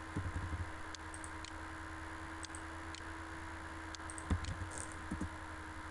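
Faint, sparse computer mouse clicks, a dozen or so scattered irregularly, over a steady electrical hum and room noise.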